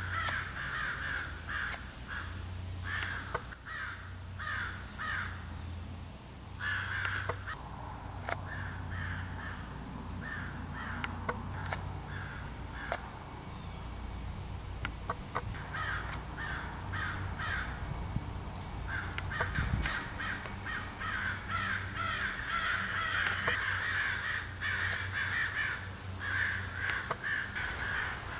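Crows cawing over and over in runs of calls, the mobbing alarm they raise at a great horned owl. The calling is sparser in the middle and grows busier and overlapping over the last ten seconds or so.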